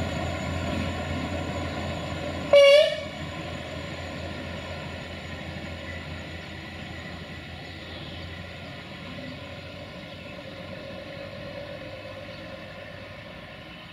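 UAM216 track maintenance vehicle's engine running steadily as it moves with the herbicide spraying wagon, the drone slowly fading, with one short, loud horn toot about two and a half seconds in.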